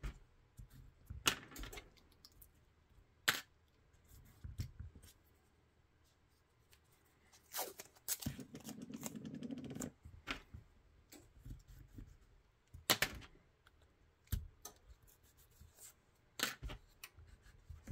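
Blue painter's tape being pulled off the roll, torn and pressed down by hand, with a longer stretch of tape unrolling near the middle. Scattered sharp clicks and taps come from handling the taped pistol on the bench.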